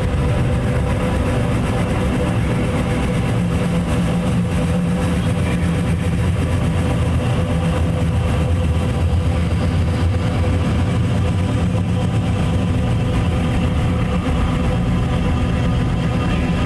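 Dark ambient noise drone: a dense, steady low-pitched wash of noise with several sustained tones held over it, without rhythm or breaks.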